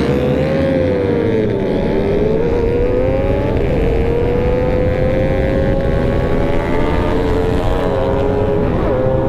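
Kawasaki ZX-10R's inline-four engine running under throttle on the move. Its pitch dips about one and a half seconds in, then climbs slowly and steadily, with a brief drop near the end, over a heavy low rumble.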